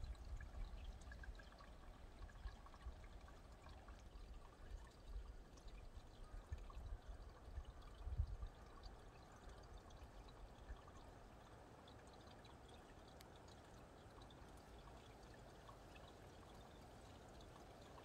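Meltwater trickling faintly under thick stream ice as it begins to thaw. Low wind rumbles on the microphone come and go through the first half, then die down.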